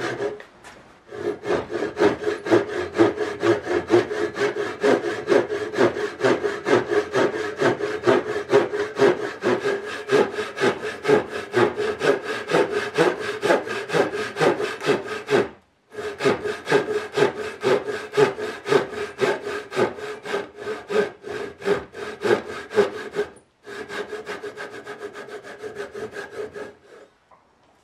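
Japanese ryoba double-edged pull saw, on its coarse rip-tooth edge, ripping along the grain down a tenon cheek in quick, even strokes. The sawing pauses briefly twice, runs softer for the last few seconds and stops shortly before the end.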